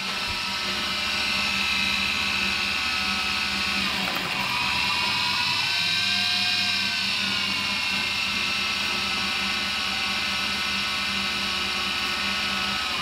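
Small brushed DC motor driving a geared lathe spindle on a homemade turning head, running with a steady high whine during a light turning pass. The pitch sags and recovers about four seconds in and dips again near the end.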